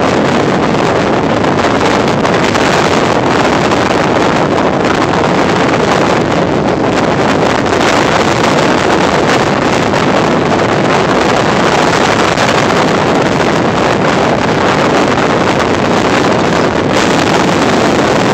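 Loud, steady wind buffeting a phone's microphone.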